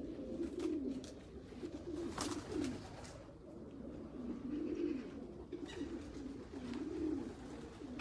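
Racing pigeons cooing continuously, several birds overlapping in low, wavering coos.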